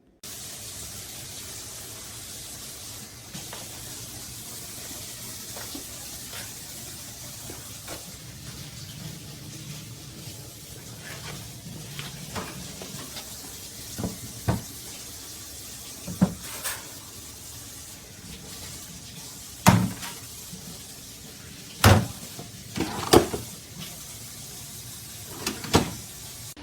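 Scattered knocks and clunks of the kitchen island cart's panels and doors being handled, over a steady hiss; the knocks come more often and louder in the second half.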